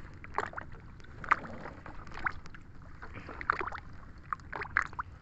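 Sea water splashing and dripping as a rope line of cottonii seaweed is hauled by hand out of the water beside a small boat: irregular short splashes and patters.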